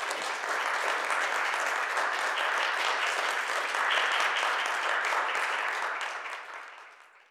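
Audience applauding, holding steady for about six seconds and then dying away near the end.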